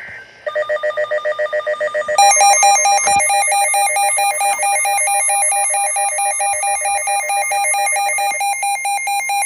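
Emergency Alert System alert tone for a severe thunderstorm warning: a loud electronic warble trilling rapidly between two pitches. It gets louder and shifts higher about two seconds in.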